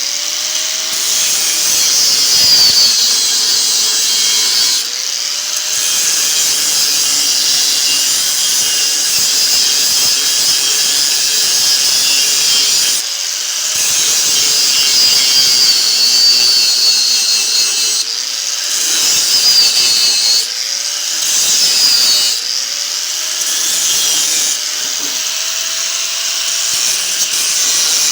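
Angle grinder with a worn-down cut-off wheel cutting through the steel shell of a refrigerator compressor: a steady, shrill grinding whine. Several times the load eases briefly and the motor's pitch climbs back up. The short worn wheel rattles against the steel.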